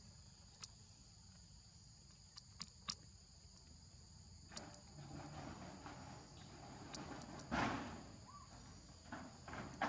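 Steady high-pitched insect drone holding two constant tones, with a few faint clicks and some rustling; a brief louder rustle comes about seven and a half seconds in.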